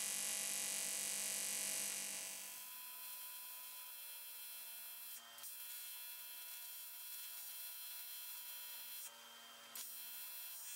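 AC TIG welding arc on aluminium, filling a hole with hand-fed filler rod: a steady electric buzz with many even overtones. It is louder for the first two and a half seconds, then settles quieter, with a brief dip just after five seconds and a short lull a little after nine.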